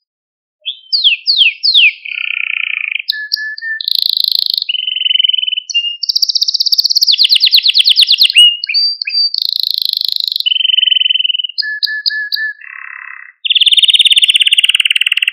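Canary singing: after a short silence, a few quick falling whistles, then varied trills and fast rolls of rapidly repeated high notes, with a lower rattling phrase shortly before a long trill near the end.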